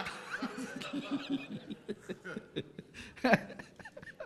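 Congregation laughing and chuckling, many voices overlapping.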